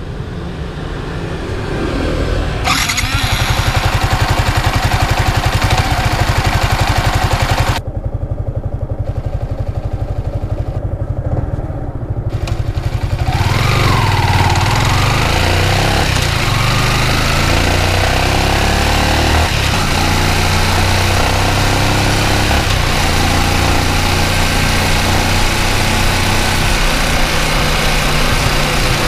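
Yamaha Exciter 155 VVA's single-cylinder engine idling while the bike stands still, then revving as the bike pulls away and accelerates from about halfway through.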